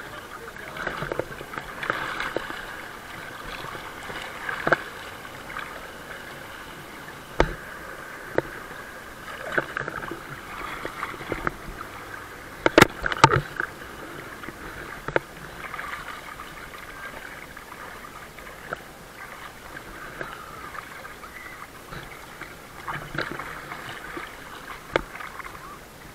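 Lake water lapping and sloshing against a camera held at the water's surface, with scattered sharp knocks and a cluster of them about halfway through.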